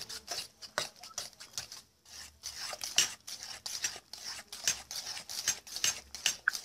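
A utensil beating thick quinoa-and-egg batter in a stainless steel bowl, clicking and scraping against the metal in an irregular run of strokes, with a brief pause about two seconds in.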